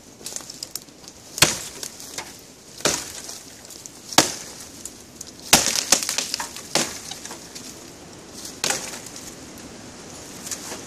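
Large chopper knife (Busse NMFBM) hacking into the wood of a fallen tree's limbs: about six sharp chops, one every second or so, with lighter crackling of wood and twigs between them.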